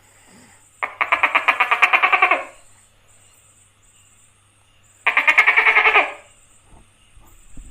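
Tokay gecko calling: two rasping, rapidly pulsed calls, the first about a second and a half long, the second about a second, some three seconds apart.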